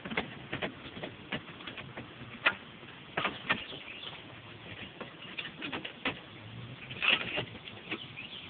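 Irregular light taps and clicks of hand work at the lead base of a copper plumbing vent boot set among clay roof tiles, with a denser run of clicks about seven seconds in.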